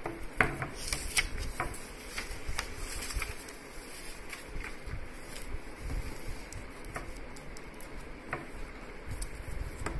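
Paper pages of a booklet on a clipboard being turned and handled: scattered light rustles and clicks, most of them in the first few seconds, over a low steady room hum.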